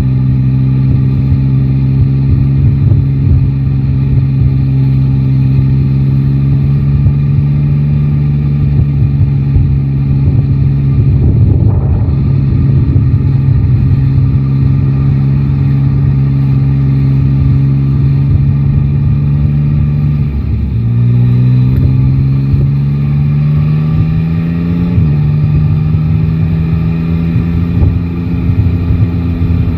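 Yamaha Tracer 9 GT's 890 cc inline-three engine cruising at steady revs under wind rumble on the microphone, with a brief rush of noise about twelve seconds in. About two-thirds through the revs drop with a gear change, climb as the bike accelerates, then step down again at a second shift.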